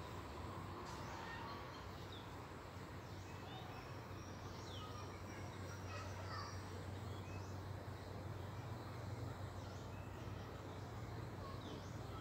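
Small birds chirping now and then, short high calls scattered through, over a steady low hum.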